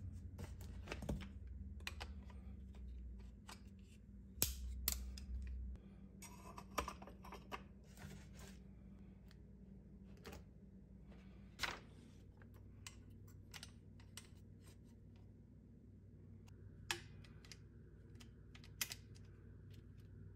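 Irregular small clicks, taps and knocks of Q Honey Badger rifle parts and a hex screwdriver being handled during assembly, with a few louder knocks among them. A faint steady low hum lies underneath.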